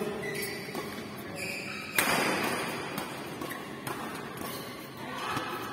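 Badminton rally: rackets hitting a shuttlecock, with one sharp loud hit about two seconds in that rings on in the echo of a large hall, and voices calling in the background.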